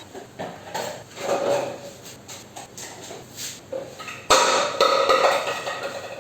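Empty plastic food containers and boxes being handled, with scattered knocks and clicks. A sudden, louder clatter with some ringing starts about four seconds in.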